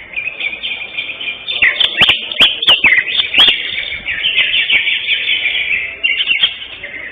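Cucak hijau (greater green leafbird) singing loudly in a fast, continuous stream of chirps and whistles, with a run of sharp sweeping notes about two to three seconds in.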